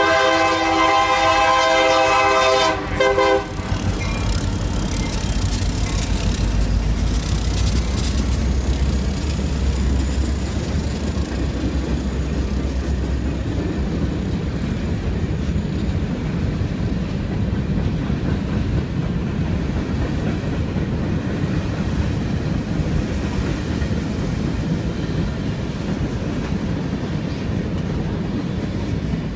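Freight train's diesel locomotive horn blowing for a grade crossing, cutting off about three seconds in after a last short note. Then the locomotives pass with a deep engine rumble, followed by the steady rumble and clatter of freight cars rolling by.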